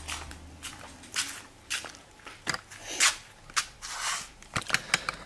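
Irregular clicks, knocks and short scraping rustles from handling and tightening a bicycle's front wheel as it is fitted into the fork.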